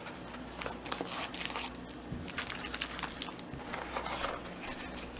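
Plastic packaging crinkling and rustling as it is handled: an irregular run of light crackles and rustles.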